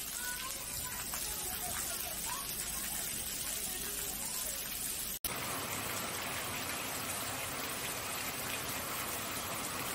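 Steady rain falling, an even hiss, with faint voices in the background during the first half. About five seconds in the sound cuts out for an instant, and the rain goes on.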